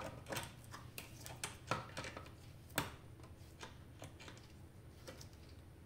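Light metallic clicks and taps as long-nose pliers and a screwdriver work a small metal sensor bracket inside an opened tube welder. There are several sharp ticks in the first three seconds, then only faint ones.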